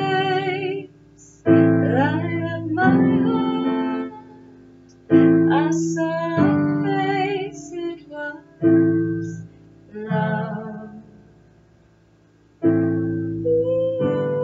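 A woman singing a slow song to her own piano accompaniment on a keyboard: chords struck every second or two and left to ring away, with her voice wavering over them. The piano fades almost to quiet near the end before a fresh chord and a held sung note come in.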